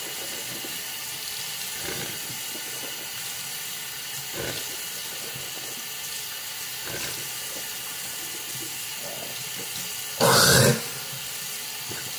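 Bathroom tap running steadily into a sink. Near the end comes one short, loud burst of sound lasting about half a second.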